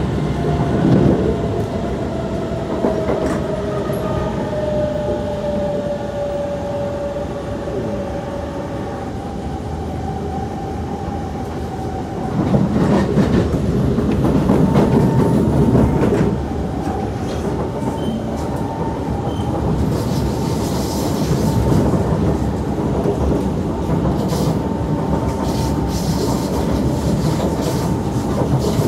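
Kawasaki–Nippon Sharyo C151 metro train heard from inside the car while running at speed: wheel-on-rail rumble under a thin electric-motor whine. The whine falls slowly in pitch over the first several seconds and later settles into a steady tone. The running noise grows louder for a few seconds about midway.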